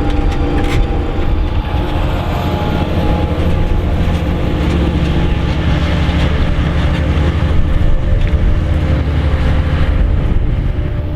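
Diesel engine of a large Fendt Vario tractor running steadily under load while pulling a plough, a deep continuous hum with a rushing noise over it.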